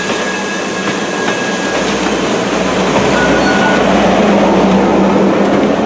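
Railroad passenger coaches rolling past at low speed: a steady rumble and clatter of wheels on the rails that grows louder about two seconds in, with a thin high squeal in the first two seconds.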